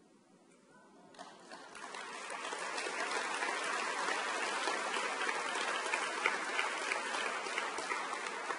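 Audience applauding: the clapping starts about a second in, builds over the next couple of seconds to a steady patter of many hands, and begins to ease near the end.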